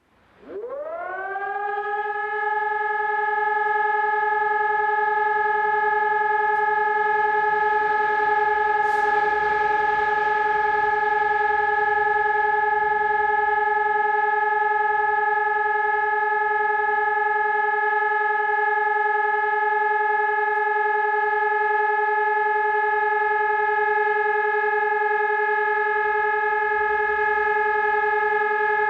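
Telegrafia Pavian 1800 electronic siren sounding the Czech siren-test signal ("Zkouška sirén"). Its tone glides up in pitch over the first second or two, then holds one steady, unwavering pitch. This steady continuous tone is the routine function check of the siren.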